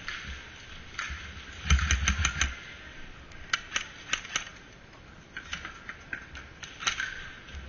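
Sharp clicks and snaps: a quick run of about seven near two seconds in over a brief low rumble, then scattered single clicks.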